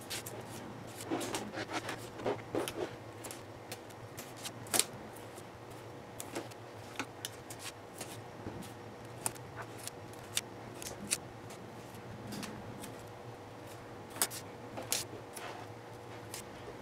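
Masking tape being handled and pressed down between the frets of a maple guitar fingerboard, masking it off for a fret dress: scattered small clicks and short papery rustles.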